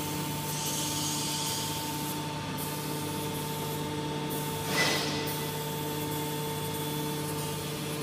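Hydraulic power unit of an ENERPAT two-ram aluminium can baler, its electric motor and pump running with a steady hum. A short hiss comes about five seconds in.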